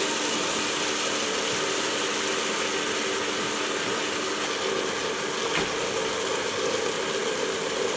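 Ultra Mini 1.25 L tabletop wet grinder running: its motor turns the stainless steel drum against the conical grinding stones, working soaked rice, millet and dal with water into idli batter. A steady hum over an even rushing noise.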